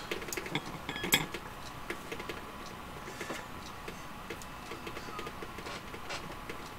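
Light metallic clicks and taps of a partly stripped 1889 Bodeo revolver's steel parts being handled and fitted by hand. The clicks are closest together and loudest in the first second or so, then come sparser.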